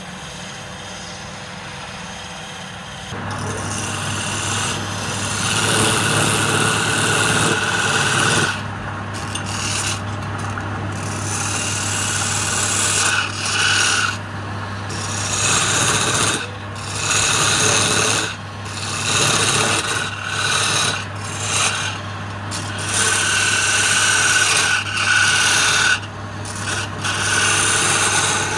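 Wood lathe motor coming on about three seconds in with a steady low hum, then a hand-held turning chisel cutting the face of the spinning palm-wood workpiece in a series of scraping strokes with short pauses between them.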